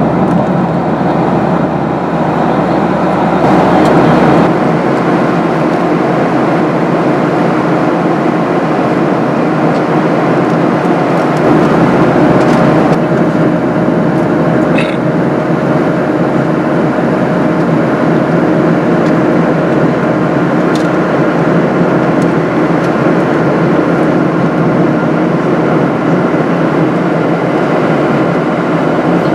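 Steady jet engine and airflow noise inside the cabin of a Boeing 737-800 with CFM56-7B engines, a loud even rush with a faint steady hum in it; a higher hum joins about twelve seconds in.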